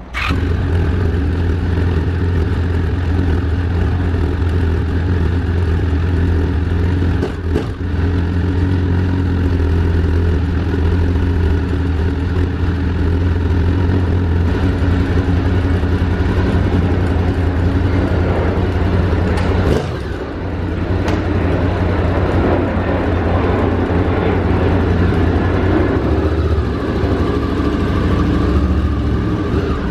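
Honda VFR800's V4 engine starting up and settling into a steady idle, the restored bike running after years of lying dormant. It pulls away near the end.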